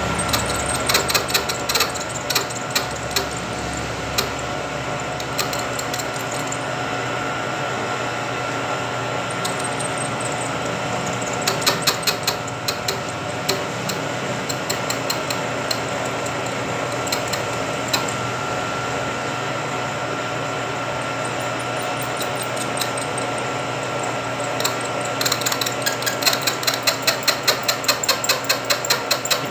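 Vertical milling machine running with a steady whine while its cutter cuts a keyway into the hard metal of an impeller's bore, with scattered sharp clicks of the tool biting. Near the end a fast, even ticking sets in, several a second.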